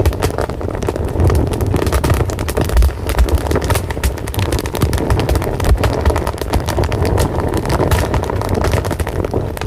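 Fire burning steadily with a low rumble and frequent small crackles and pops.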